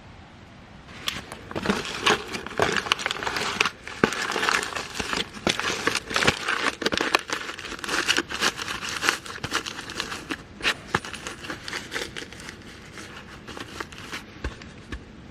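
Dense, irregular crinkling and rustling, like material being crumpled or handled. It starts about a second in and thins out near the end.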